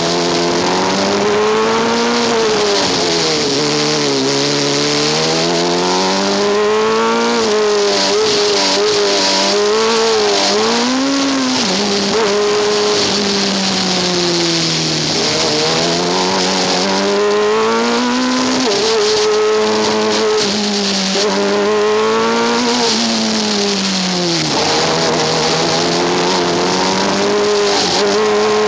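Onboard sound of a Formula Student single-seater's engine running hard, its revs rising and falling again and again, with sharp drops about twelve seconds in and near the end.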